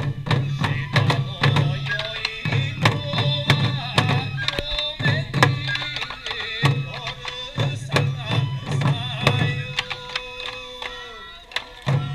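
Sansa festival music: drums struck in a busy, steady rhythm, with held pitched melody notes above them.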